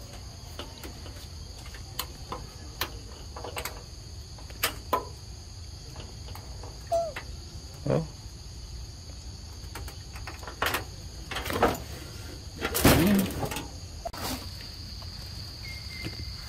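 Steady high-pitched chorus of insects, with scattered short clicks and rustles; the loudest of these is a burst about two-thirds of the way through.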